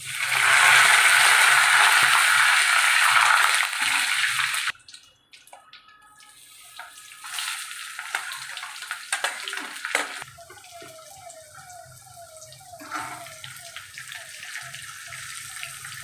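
Curry leaves dropped into hot oil in a steel kadai sizzle and crackle loudly, stopping abruptly after about four and a half seconds. Then chopped onions, garlic and green chillies tipped into the pan fry with a softer, steady sizzle, with a few sharp scrapes of a steel spoon against the pan. From about the middle, a faint run of short falling chirps, about three a second, sits behind the sizzle.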